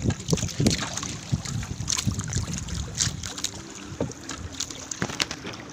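Fishing net being hauled by hand over the side of a wooden outrigger boat: water dripping and splashing off the mesh, with scattered short taps and knocks. Wind buffets the microphone.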